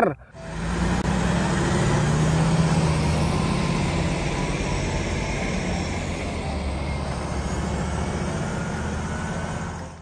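Heavy diesel engine running steadily: a lowboy truck hauling a large Liebherr crawler excavator, with a low, even engine hum under a wash of mechanical noise.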